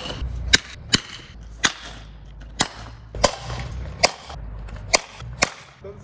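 A string of about eight sharp cracks, each half a second to a second apart, set off by hand, most likely from a swung or thrown object.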